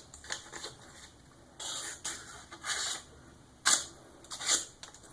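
Handling noises: a few short scrapes and rubs with quiet gaps between them, the sharpest two close together near the end.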